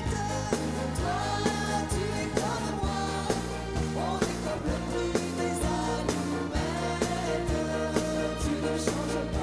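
Live pop song: a man and a woman singing into microphones over a full band with a steady beat.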